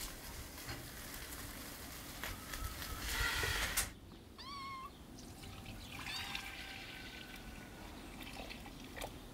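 A cat meowing: one short, arched meow about half a second long, then a fainter, longer cry a couple of seconds later. Before the meows there is a steady noisy rustle that stops abruptly.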